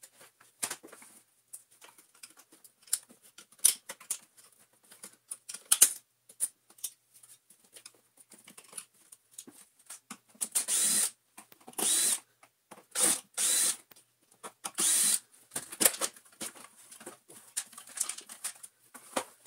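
Scattered clicks and knocks of the vacuum cleaner's plastic housing being handled. About halfway through come about five short runs of a cordless drill-driver, each under a second, backing screws out of the vacuum's body as it is taken apart.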